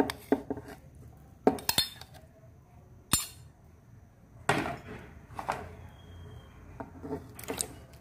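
Scattered clinks and knocks of a spoon and measuring cup against a blender jar as chopped cooked cassava is spooned in, about a dozen separate taps with short pauses between them.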